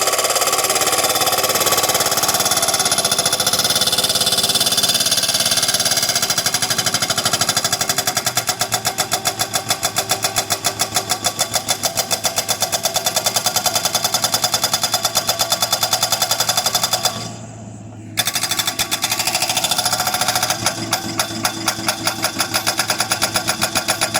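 A Montana post driver hammering a fence post into the ground: rapid, evenly spaced blows over a running engine. It stops briefly about two-thirds of the way through, then starts hammering again.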